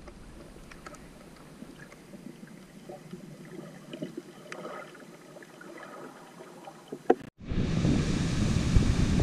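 Muffled underwater sound with faint scattered clicks and crackles, heard through a submerged camera. After a brief dropout about seven seconds in, a loud steady rush of wind on the microphone and surf at the shoreline takes over.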